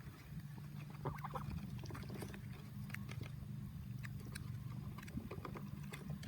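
A few faint, short calls from pet waterfowl over a steady low hum, with scattered light clicks.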